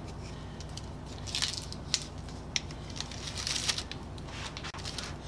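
Small handling noises, a few light clicks and short rustles, as objects are picked up and moved on a workbench. Under them runs a steady low hum.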